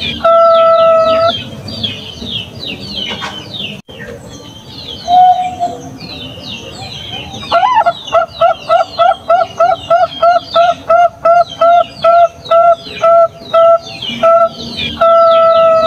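Bangkok-type zebra dove (perkutut) singing its cooing song. A long held coo opens it, then a rapid run of short, clipped coos at about three a second, and another long held coo near the end. Other small birds chirp high in the background throughout.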